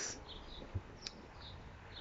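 Faint, scattered bird chirps in the background, with a single small click about a second in.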